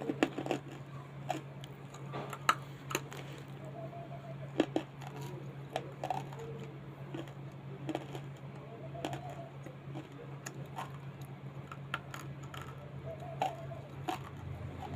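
A person biting and chewing a crunchy snack close to the microphone: irregular sharp crunches over a steady low hum.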